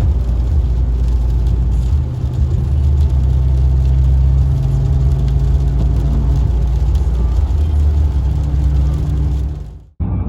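A car driving at a steady speed: a steady low engine and road rumble that cuts off abruptly near the end.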